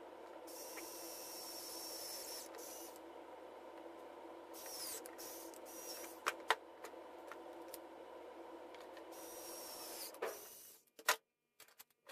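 Small cordless electric screwdriver driving a drill bit, pre-drilling pilot holes into white plastic board, its motor running steadily with a couple of sharp clicks. It stops about ten seconds in, followed by a few faint clicks.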